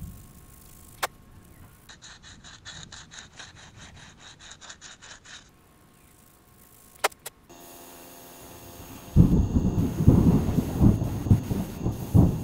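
Sandpaper rubbing back and forth on a painted wooden lure body in quick strokes, about five a second, for a few seconds. After a couple of clicks, a loud, uneven low rumble takes over near the end.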